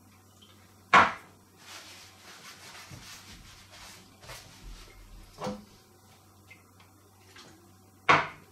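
A metal tin of lighter fluid being handled on a tabletop: a sharp knock about a second in and another near the end, with a smaller knock and quiet rubbing and rustling between them.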